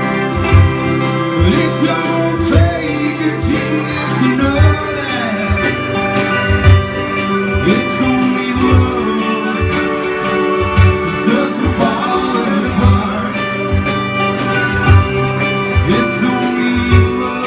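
Live country-rock band: a sung lead vocal over strummed acoustic guitar, electric guitar, piano accordion and a drum kit keeping a steady beat of about two kicks a second.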